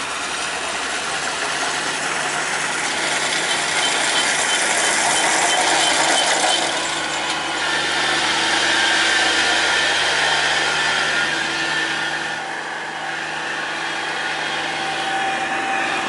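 Kubota DC-35 rice combine harvester running as it cuts through standing rice: a steady diesel engine with the rattle of its working machinery.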